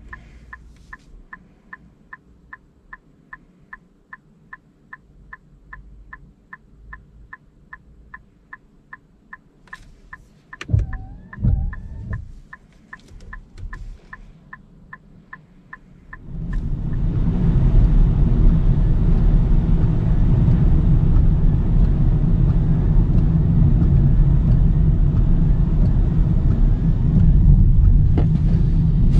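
A car's turn-signal indicator ticks steadily inside a quiet stopped cabin, about two and a half ticks a second, with one short louder sound around the middle. About 16 s in it gives way to loud, steady road noise inside the cabin of a Nissan Note e-POWER at expressway speed, its tyres running on a wet road.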